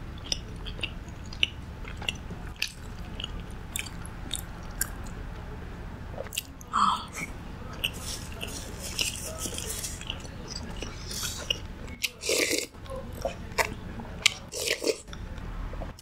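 Close-miked eating: biting and chewing with many small wet mouth clicks and several louder crunchy bites, over a steady low hum.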